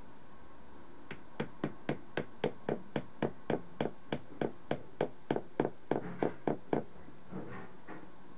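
Small hammer tapping lightly on a part held in the hand: a quick, even run of about twenty taps at roughly three or four a second, stopping about two-thirds of the way in.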